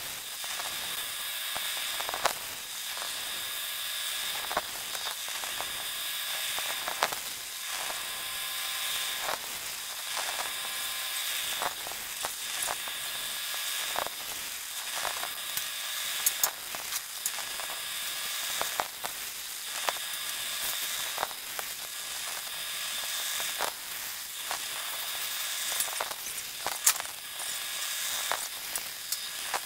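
Automatic bore welder's welding arc crackling steadily as the torch rotates inside a worn link bore, with frequent sharp pops of spatter. It is laying a single build-up pass after a light clean-up cut, so the bore can be machined back to size.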